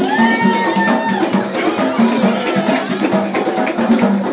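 Live drumming and percussion music with a quick, steady beat, and a long held high note over it in the first second or so.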